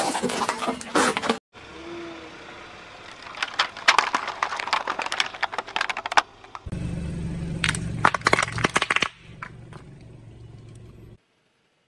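A car tyre rolling slowly over objects and crushing them: several bursts of cracking and crackling as plastic cups and crunchy things split under the wheel. A low engine hum runs through one stretch. It cuts off shortly before the end.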